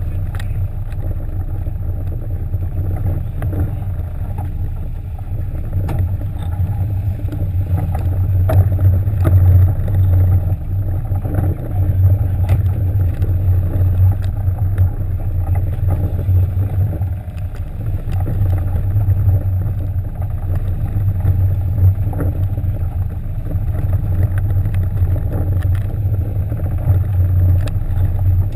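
Sport-fishing boat's engines running with a steady low drone.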